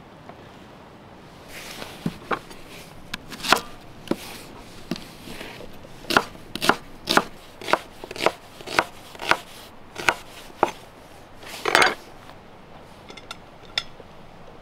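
Large kitchen knife slicing an onion on a wooden cutting board: a run of sharp chopping strikes, about two a second through the middle, ending with a longer, louder stroke.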